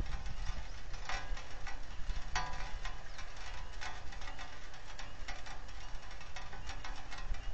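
Rain falling on an outdoor nest-camera microphone: irregular drops ticking, a few louder ones about one and two and a half seconds in, over a steady low rumble.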